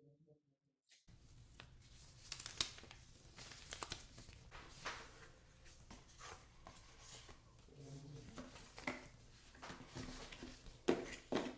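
Hands handling packaging during an unboxing: scattered taps, clicks and rustles of cardboard and plastic, after a second of silence at the start.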